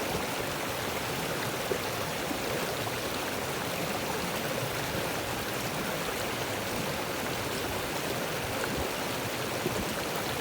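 A small glacial-meltwater stream rushing steadily over rocks, close by.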